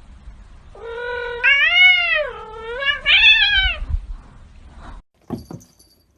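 A cat meowing: one long drawn-out call that starts about a second in and rises and falls twice before ending near four seconds. A sudden cut follows, then a couple of short, quiet sounds.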